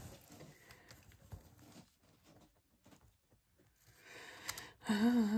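Faint rustling and light taps of paper card pieces being handled and moved on a craft table. Near the end comes a short held hum, a thinking "hmm".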